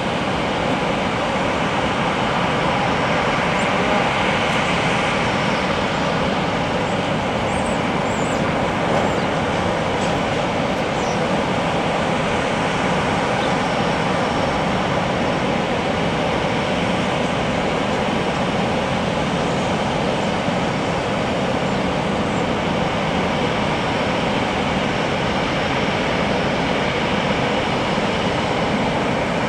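Airbus A350's Rolls-Royce Trent XWB turbofan engines at low taxi power: a steady, even jet rush with a faint high whine.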